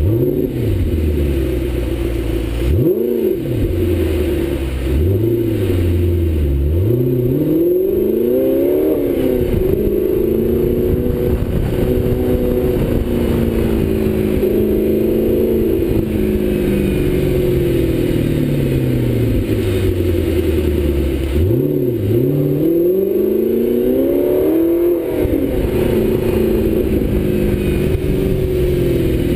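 Audi R8 engine heard through its Kreissieg aftermarket exhaust while driving, the revs climbing and dropping with each gear change. There is a quick rev blip about three seconds in, then two longer pulls where the pitch rises steeply before falling back as the car eases off.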